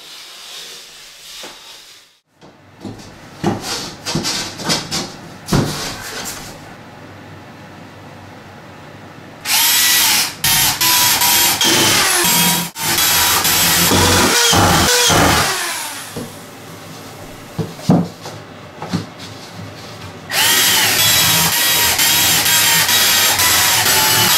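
Power drill running in two long runs, its motor speeding up and slowing as it works along the shower bench's front edge, after a spell of knocks and handling noise.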